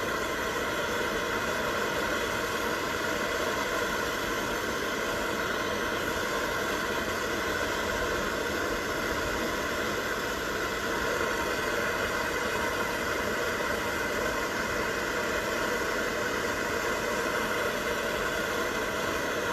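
Steady hiss of a gas torch flame heating a 4/0 copper connector so that solder flows into the wire.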